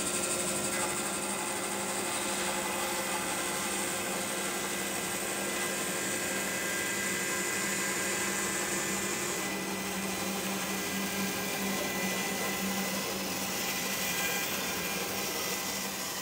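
Bandsaw running and cutting through a thick live-edge hardwood board, with a dust collector running alongside: a steady machine whir with a low hum under it. A high hiss in the sound drops away about halfway through.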